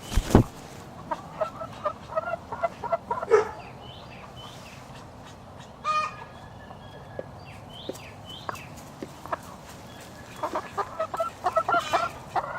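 Brahma chickens clucking softly, with many short calls in clusters and one louder call about six seconds in. A loud bump right at the start.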